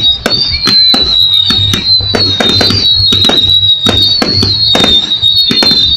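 Fireworks going off in rapid succession, a dense run of loud bangs and crackles, with a high wavering whistle running underneath.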